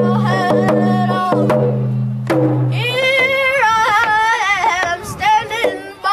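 A single-headed hand drum beaten with a beater in a steady beat while a singer sings a hand-drum song in a wavering voice that climbs higher about three seconds in. A low steady hum sounds underneath and stops about three seconds in.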